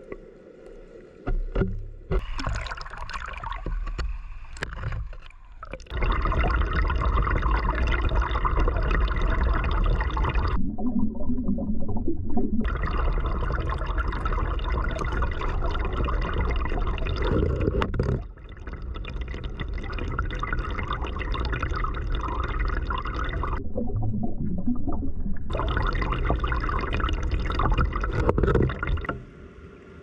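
Rushing stream water and churning bubbles heard underwater, where a current pours into a pool. The rush drops and jumps abruptly several times.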